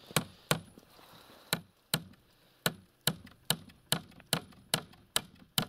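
A hammer driving a nail into a wooden post: about a dozen sharp blows, roughly two or three a second, with a short pause after the first two.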